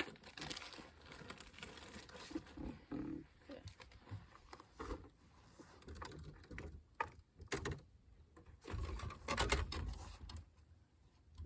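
Fishing tackle being handled: scattered small clicks, taps and rustles, with a louder stretch of rustling and rumble about nine seconds in.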